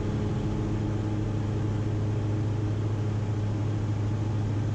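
Cabin noise of a Diamond DA42 twin in the climb: its two Austro AE300 turbo-diesel engines and propellers give a steady low drone under a constant rush of airflow.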